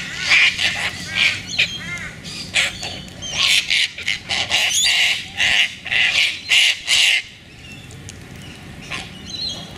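A flock of sulphur-crested cockatoos screeching: many harsh, overlapping calls that die down about seven seconds in.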